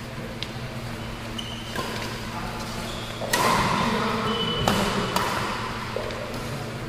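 Badminton rackets striking a shuttlecock during a doubles rally, a string of sharp smacks a second or so apart, louder from about halfway in, with a few brief shoe squeaks on the court floor.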